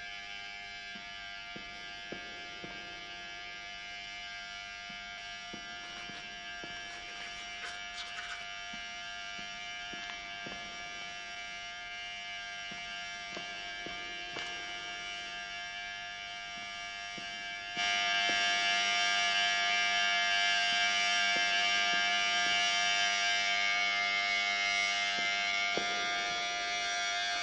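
Electric hair clippers buzzing steadily as they shave a man's head. The buzz jumps abruptly louder about two-thirds of the way in and stays loud.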